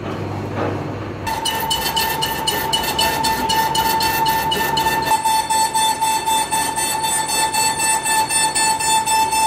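Lathe boring the inside of a spinning truck wheel hub. About a second in, the cutting tool starts a steady high-pitched squeal that pulses about five times a second. Before that the lathe runs with only a low hum.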